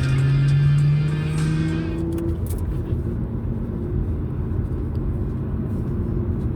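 A Samsung Galaxy ringtone melody playing through a phone speaker, its layered tones ending about two and a half seconds in. After it a steady low rumble of background noise goes on.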